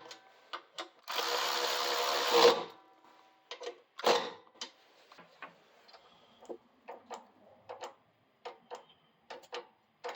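Power drill-driver whirring for about a second and a half, running down the new brake caliper's mounting bolts, followed by a scatter of light clicks and knocks of tools and parts being handled.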